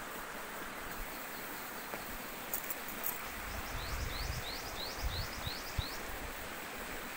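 A small bird calls a quick series of about seven short, rising chirps, around three a second, for about two seconds midway. Underneath runs a steady outdoor rushing hiss, with a few low thumps.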